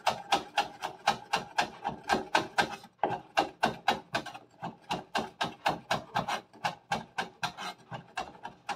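Kitchen knife rapidly chopping Chinese chives on a wooden cutting board, about four to five quick strikes a second, with a brief break about three seconds in.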